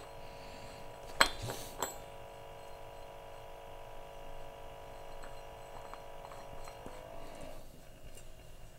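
Two light metallic clinks a little over a second in, from the calibration-gas regulator being fitted to the 25 ppm hydrogen sulfide cylinder, then a faint steady hum that stops near the end.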